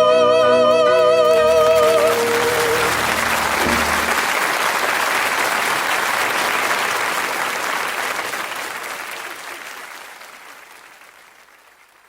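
The song's final note held in harmony with vibrato over the accompaniment, cutting off about two seconds in, followed by audience applause that fades out toward the end.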